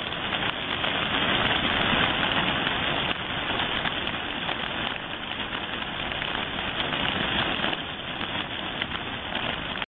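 A large flock of feral pigeons flapping and fluttering as they crowd in around one spot, a dense continuous rustle of many wings.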